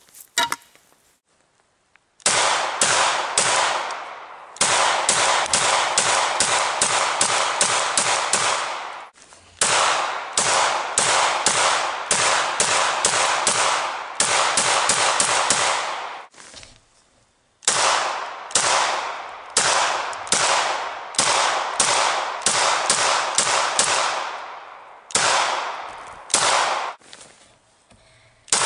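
Glock pistol coated in maple syrup firing rapid strings of shots, about three a second, with short pauses between strings: the syrup-soaked gun still cycling and firing.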